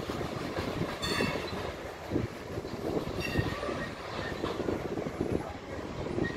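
Coal cars of a BNSF freight train rolling past, their steel wheels rumbling and clattering steadily on the rails. Brief high wheel squeals come about a second in and again about three seconds in.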